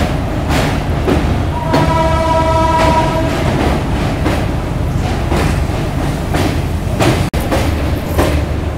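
Passenger train running across a steel truss bridge, heard from an open coach door: a steady rumble with repeated clacks of the wheels over the rail joints. A horn sounds for about a second, around two seconds in, and the sound cuts out for an instant near the end.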